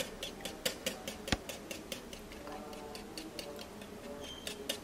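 Wire balloon whisk beating eggs in a ceramic bowl, its wires clicking lightly against the bowl about four to five times a second, with one sharper knock about a second in.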